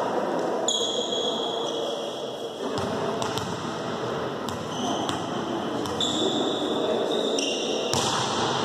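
Volleyball play in a reverberant gym hall: a handful of sharp ball strikes, short high squeaks, and players' voices.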